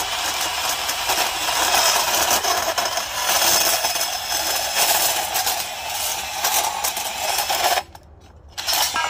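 Cordless portable band saw cutting through steel strut channel: a steady, harsh metal-cutting hiss that stops suddenly about eight seconds in, followed by a brief second burst of cutting near the end.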